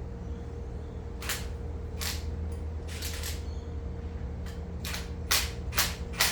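About eight short scraping and clicking handling noises as a hose clamp on a gas hose is worked tight by hand over a brass fitting. The last three, near the end, are the loudest, and a steady low hum runs underneath.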